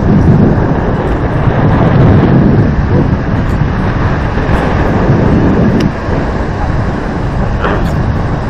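Strong wind buffeting the microphone: a loud, churning rumble that covers everything else.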